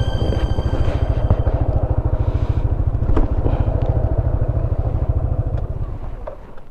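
Single-cylinder four-stroke engine of a Yamaha Smash underbone motorcycle running with a steady low pulsing. It fades away near the end.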